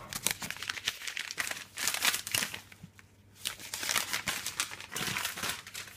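Paper instruction leaflet crinkling and rustling as it is handled, in a run of irregular crackles with a short lull about three seconds in.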